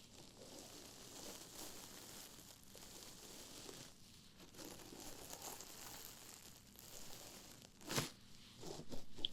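Scrubbing sponge rubbed and scratched against an ASMR microphone, a continuous dry, crinkly scratching, with a sharper louder stroke near the end.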